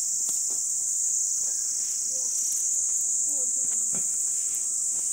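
A steady, high-pitched insect chorus shrilling without a break through the pine forest, with faint low voices and a few light clicks beneath it.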